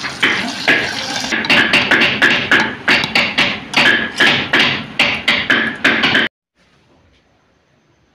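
Hot oil tempering (tadka) with fried green and red chillies is poured from a frying pan onto cooked saag in a clay pot. It sizzles under a quick, steady run of sharp crackles and knocks, about four a second, and cuts off abruptly about six seconds in, leaving only faint room tone.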